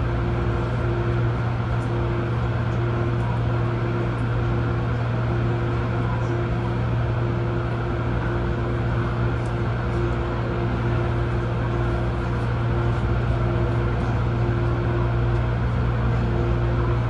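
Steady hum inside an MTR Airport Express A-Train car standing at a platform, from the train's onboard equipment and ventilation. It is a constant low drone with a fainter higher tone that keeps breaking off and returning.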